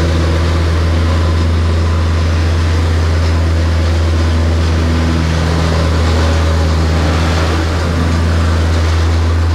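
Vibratory plate compactor running at full vibration as it is walked over loose sand, compacting it: a loud, steady engine hum with a rattling vibration on top.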